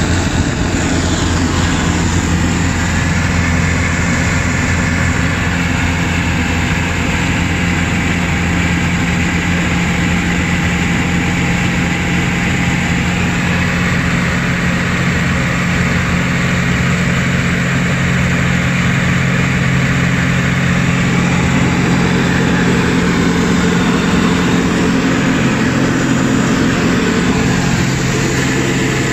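ULPower UL350iSA four-cylinder aircraft engine and propeller droning steadily in cruise at about 2,600 rpm, heard inside the TAF3 Flamingo's cockpit over a steady hiss of airflow.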